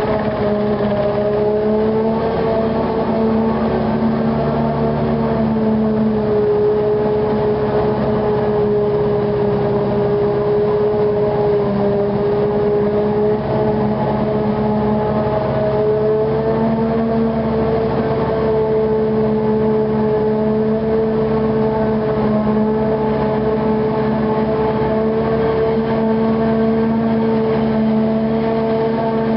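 Heavy maize-harvesting machinery, the diesel engines of tractors and harvest equipment working the crop, running steadily under load. It is a strong held hum whose pitch wavers only slightly.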